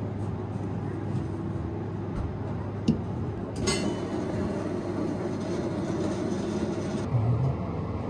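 Steady low rumble of background noise, with two sharp clinks of a metal fork against a ceramic plate about three seconds in, the second ringing briefly.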